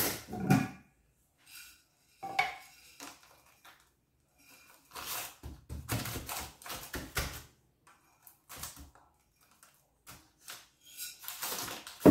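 Kitchen handling noises: irregular clicks and knocks from a glass jar and a steel mixing bowl, with rustling from the baking paper lining a loaf tin, as seeds go onto bread dough. The busiest stretch is in the middle, and the loudest knock comes near the end.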